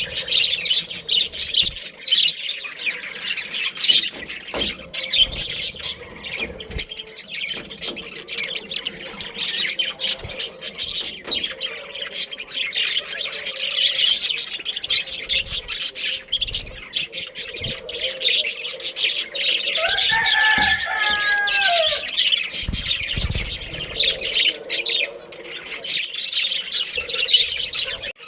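A flock of budgerigars chattering and chirping continuously, with a short lower, falling call about twenty seconds in.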